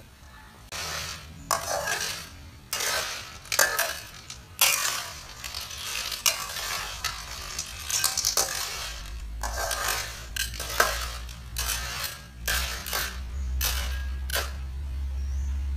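Utensil clattering and scraping against cookware in a run of short, irregular strokes. A low steady hum joins about nine seconds in.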